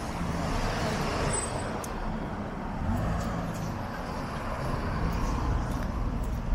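City street traffic: engines of passing motor vehicles running, with steady road noise.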